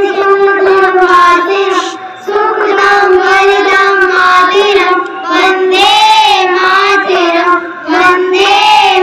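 A child's high voice singing a song, with long held notes and smooth glides between them.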